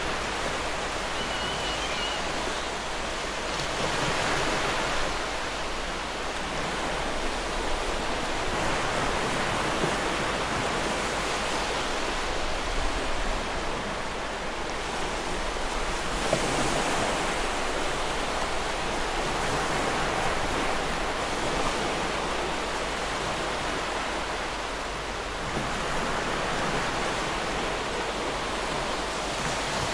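Surf washing onto a beach, swelling and easing every several seconds, with one short, faint bird call about a second and a half in.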